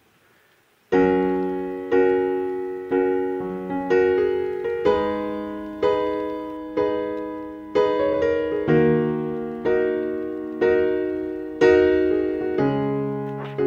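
Background piano music, beginning about a second in: chords struck roughly once a second, each fading away before the next.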